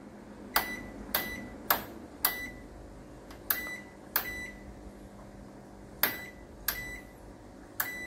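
Front-loading washing machine's control panel beeping as the program selector dial is turned step by step through the wash programs: nine short beeps at uneven intervals.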